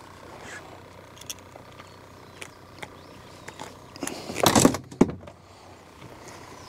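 Handling noises in an aluminum jon boat as a caught catfish and tackle are moved about: scattered light knocks and clicks, then a loud noisy burst of under a second about four seconds in, followed by one sharp knock.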